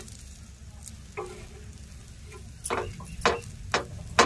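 Burger buns toasting in ghee on a hot iron tawa with a faint sizzle, broken by a few sharp clicks and knocks of a utensil against the pan, the loudest near the end.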